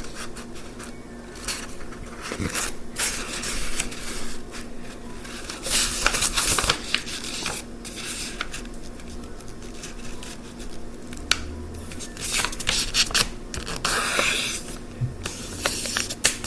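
A sheet of paper being folded by hand for a paper airplane: irregular rustling, crinkling and rubbing as the fold is lined up and the crease pressed flat, with a few louder stretches.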